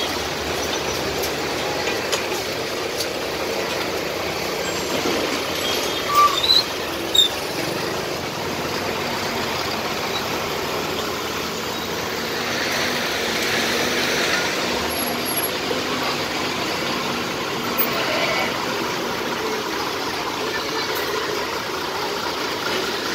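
Steady road traffic noise from a queue of waiting lorries and vans with their engines running. A few short, loud sounds come close together about six to seven seconds in.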